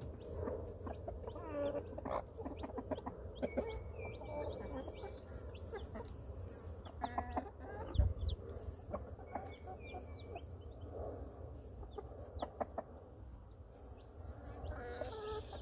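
A broody hen clucking low over her chicks, with the chicks' short, high, thin peeps. There is a single dull thump about halfway through.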